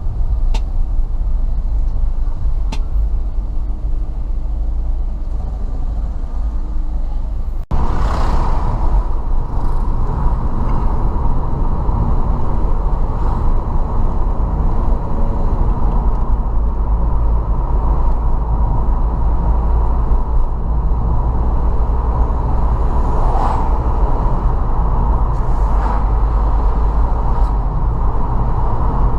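Steady low rumble of a car's engine and road noise heard from inside the moving car. About eight seconds in it breaks off abruptly and comes back brighter, with a faint steady tone running under it.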